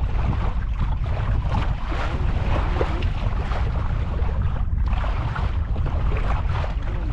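Wind buffeting the microphone in a steady low rumble, with water noise around a small open boat on the sea.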